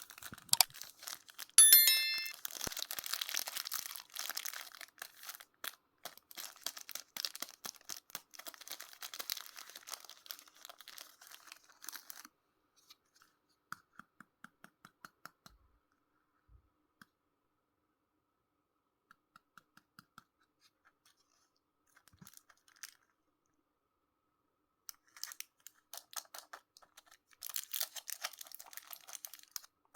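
Sweet wrappers being unpacked, crinkling and tearing in close, dense crackles, with a short bright ring about two seconds in. Midway the handling thins to scattered light clicks and taps before the crinkling picks up again near the end.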